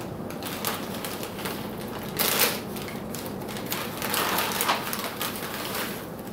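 Foil pouch of freeze-dried astronaut ice cream being torn open and handled, crinkling in irregular rustles, loudest about two seconds in and again around four seconds in.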